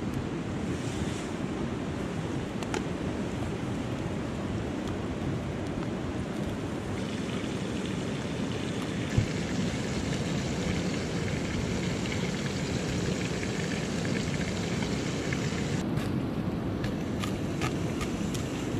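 Campfire burning with a steady low rush, with sharp pops from the burning wood: one loud pop about nine seconds in and a cluster of crackles near the end.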